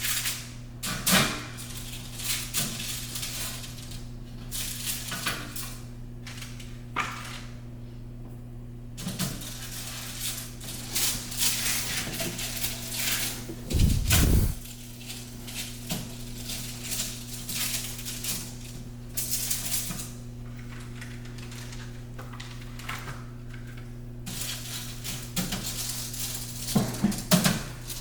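Kitchen handling sounds while cookies are prepared: scattered clinks and knocks of dishes, pans and utensils, with one heavier thump about halfway through. A steady low electrical hum sits underneath throughout.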